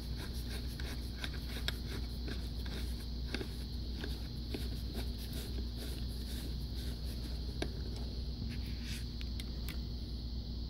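Small irregular clicks and rubbing from fingers working the knob of an MFJ-259B SWR analyzer, over a steady low hum and a faint high whine. The clicking thins out near the end.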